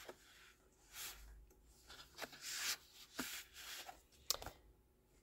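Sheets of coloured cardstock sliding and rustling against each other as they are moved across a table, in several soft swishes with a few light taps.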